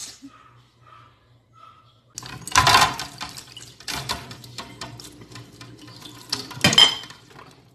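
Kitchen tap water running into a sink during dishwashing, starting about two seconds in, with small clinks throughout and two louder clatters, one near the start of the flow and one near the end.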